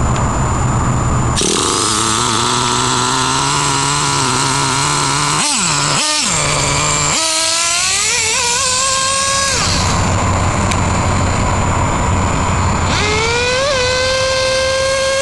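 Traxxas T-Maxx's 3.3 two-stroke nitro engine, loud, revving as the RC truck drives. The pitch climbs for a few seconds, dips sharply twice around six seconds in, then rises to a high, held whine, drops back, and climbs to a high whine again near the end.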